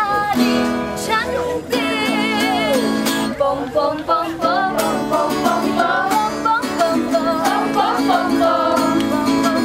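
Music: a singing voice with vibrato over plucked guitar accompaniment.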